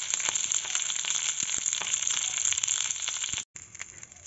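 Fresh curry leaves frying in hot oil in a steel pan: a dense, steady sizzle full of rapid crackles and pops. About three and a half seconds in it drops abruptly to a much fainter sizzle with scattered pops.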